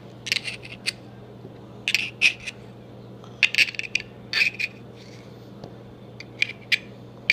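Small metallic clicks and scrapes in short clusters about a second apart: pliers working inside a Zippo lighter's metal insert, pulling out the cotton packing to reach the wick.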